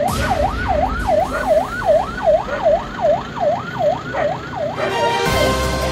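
Emergency rescue van's electronic siren in a fast yelp, its pitch rising and falling about two and a half times a second. Music cuts in near the end.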